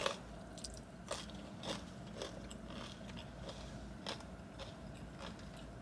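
Close-up chewing of In-N-Out animal-style fries, with small wet mouth clicks about twice a second.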